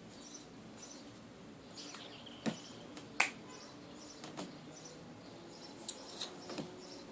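Homemade slime being handled and squeezed, giving a handful of sharp sticky clicks and pops a second or so apart. Faint high chirps repeat in the background.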